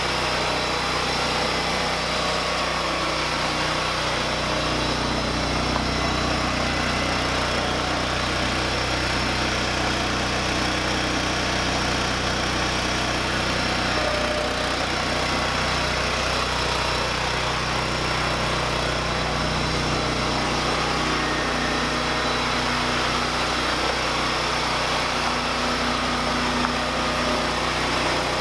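Small lawn tractor engine running steadily at an even speed.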